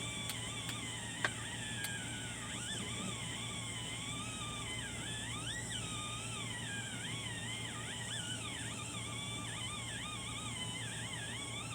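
Music of wavering, gliding high-pitched tones over a steady low hum, with a single sharp click about a second in.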